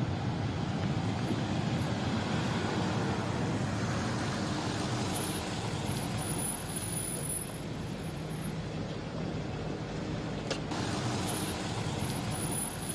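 Aurus limousine rolling and stopping with its brake pads squeaking over steady vehicle noise. A single sharp click comes about ten and a half seconds in.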